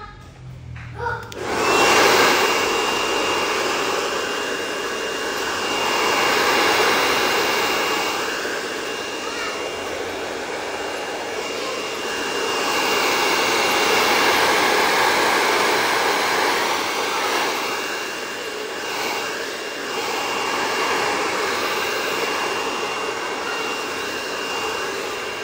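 Lizze handheld hair dryer switched on about a second and a half in, then running steadily while blow-drying hair, a steady rush with a thin high whine over it that swells and eases every few seconds.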